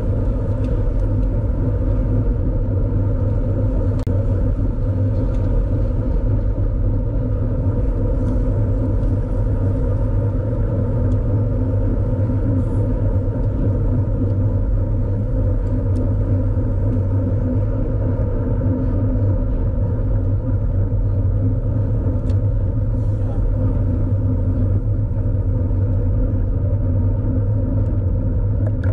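Steady low rumble of wind and road noise buffeting a moving camera's microphone while riding, with no distinct events.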